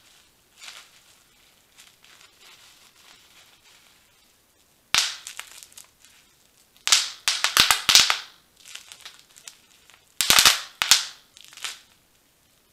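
Bubble wrap twisted in the hands, its bubbles popping with sharp snaps: one about five seconds in, a fast run around seven to eight seconds, and another quick burst just after ten seconds. Faint crinkling of the plastic comes in between.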